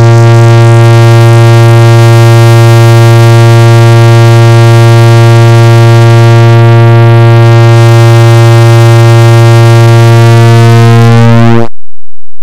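A loud, steady, low buzzing tone: a clock-tick sound effect repeated so fast that the ticks fuse into one continuous note. It cuts off abruptly about a second before the end.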